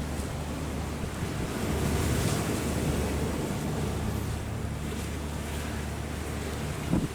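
Strong wind buffeting the microphone over rough, choppy sea, with a steady low engine hum underneath. The wind surges about two seconds in, and a short knock comes near the end.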